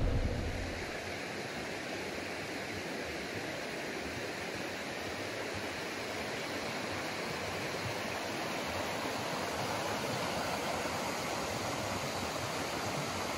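A rocky mountain creek rushing over rapids: a steady water roar.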